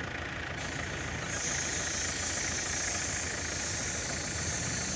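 Engine of a 4x4 SUV running steadily as it drives through soft sand on a dune track, with a hiss that grows brighter about a second in.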